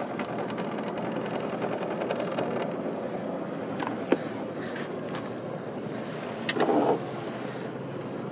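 Steady rush of water and light wind aboard a sailboat moving slowly through calm water. A sharp click comes about four seconds in, and a short, louder burst of noise comes later.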